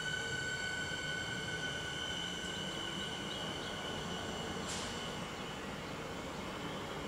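Siemens electric multiple unit pulling away, its high steady whine in several pitches over a low rumble, fading as it moves off. A brief sharp hiss about four and a half seconds in.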